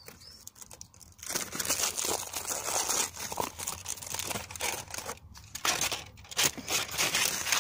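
Foil wrapping crinkling and tearing as it is peeled by hand off a chocolate Easter egg, starting about a second in, with a couple of short pauses.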